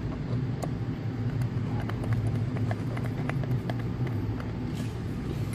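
Steady low machine hum, with faint irregular clicks of a hand screwdriver turning a screw into the metal seal-retaining tab on an oxygen concentrator's compressor head.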